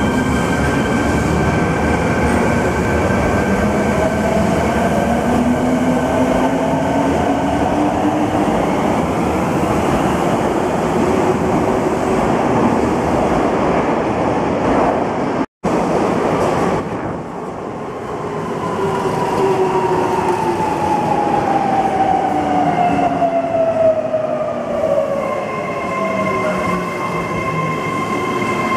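Subway trains in an underground station: one pulls out with its electric motors whining upward in pitch as it speeds up. After a brief break in the sound just past halfway, another comes in with its motor whine falling as it slows, settling into steady tones as it stops.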